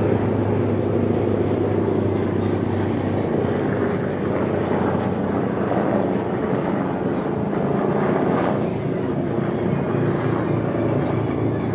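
Helicopter rotor and engine running steadily with a fast blade chop, holding a fairly even loudness throughout.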